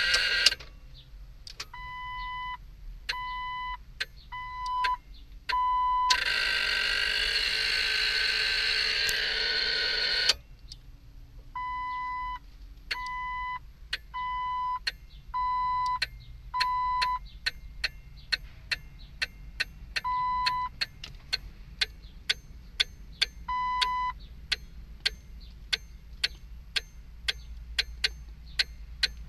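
Jeep Wrangler dash warning chime sounding single half-second beeps, several in a row, then more sparsely. Behind it something in the dash clicks steadily, about twice a second. This is the clicking that starts as soon as the battery is connected on this no-start, which the owner suspects comes from a brake-alarm relay. A loud rushing noise covers everything for about four seconds early on.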